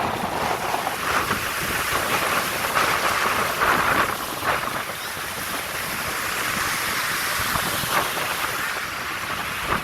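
Ocean surf washing onto the beach, a steady hiss that swells a little a few times, with wind rumbling on the microphone.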